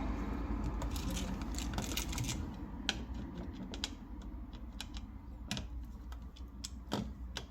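Screwdriver tightening the terminal screws on a new GFCI outlet: irregular light clicks and taps of the metal tip on the screws and the plastic body as the wire connections are snugged down.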